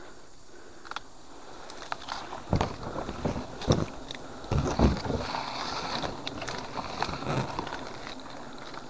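Oil palm fronds and a bundle of leafy branches rustling and knocking against each other as they are handled close up. The sound is quiet at first; about two and a half seconds in come irregular knocks and scrapes, with the loudest thumps near the middle.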